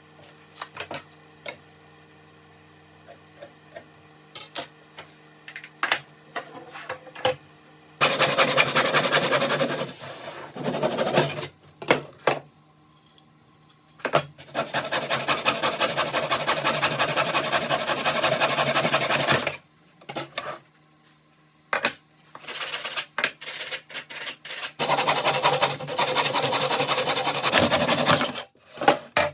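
Wood being worked by hand with fast rasping strokes in three spells, each a few seconds long, with scattered clicks and knocks before and between them.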